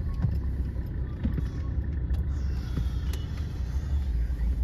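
Steady low road and engine rumble heard from inside a moving vehicle, with a few faint clicks.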